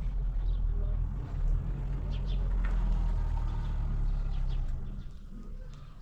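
Low steady rumble of a car driving, fading away about five seconds in, with faint bird chirps over it.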